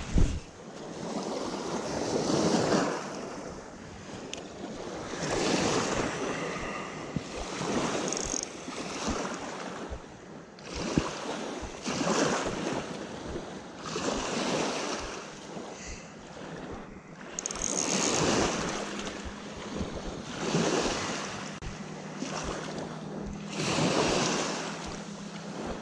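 Small waves lapping and breaking on a sandy, gravelly lake shore, the wash swelling and fading every few seconds.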